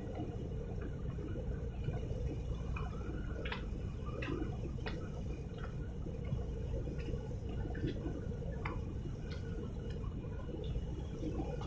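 Harbour water lapping and slapping against the shore, with irregular small splashes and drips over a steady low rumble.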